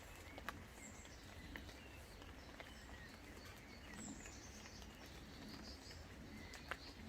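Faint birdsong outdoors: scattered short chirps and trills over a steady low rumble, with a few sharp clicks.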